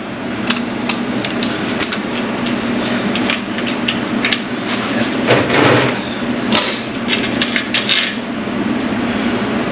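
Hand tools clinking and knocking irregularly against metal engine parts, over a steady low hum.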